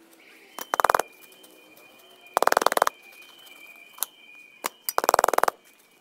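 Small metal hand trowel scraping potting mix of peat and perlite out of a plastic basin, a short rattling scrape three times about two seconds apart.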